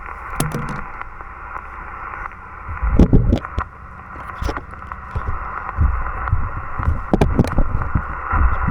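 Hiss of an HF band from the Yaesu FT-891 transceiver's speaker, cut off above the voice band, with low rumbles and sharp clicks of handling or wind on the microphone, strongest about three seconds in and again from about six seconds.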